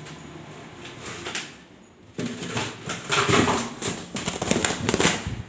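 A pigeon flapping its wings in quick, loud bursts from about two seconds in until just before the end, as it is taken in hand.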